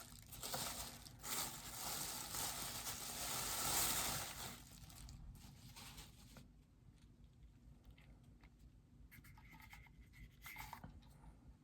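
Packaging being handled as a bobblehead is unboxed: a dense rustling and crinkling of the wrapping for the first four or five seconds, then quieter scattered rustles and light clicks.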